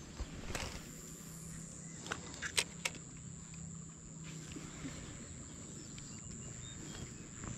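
A few sharp clicks from a spinning fishing reel being handled just after a cast, over a steady high-pitched insect drone.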